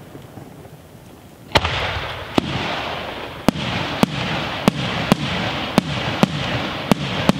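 Aerial firework shells bursting overhead: about ten sharp bangs in quick succession, beginning about a second and a half in, roughly one every half-second to second. An even hiss fills the gaps between the bangs, and the first bang is the loudest.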